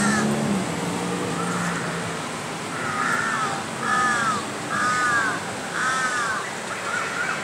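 A bird calling repeatedly, short harsh arched calls about once a second starting a few seconds in.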